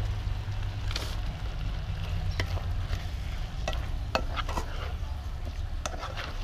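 A plastic spatula stirring a stir-fry in a coated wok, with irregular scrapes and knocks against the pan over a light sizzle.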